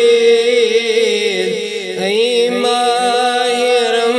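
Naat singing in praise of the coming of Ramadan: a voice holds a long, wavering melodic line over a steady lower drone, dipping briefly about two seconds in.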